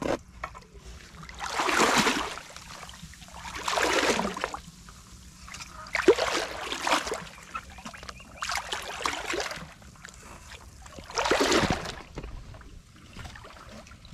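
Legs wading through shallow muddy water, each stride sending a swish and slosh of water, about every two seconds.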